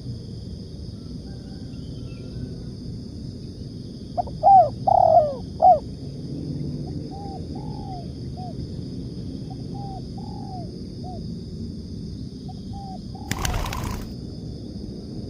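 Spotted doves cooing: a loud close phrase of coos about four seconds in, then a run of softer coos over the next several seconds. Near the end comes a brief noisy burst, and a steady high-pitched hum runs underneath.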